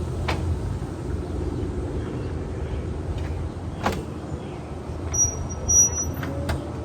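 A 2002 Bobcat compact excavator's diesel engine running steadily under work, with three sharp knocks spread through it.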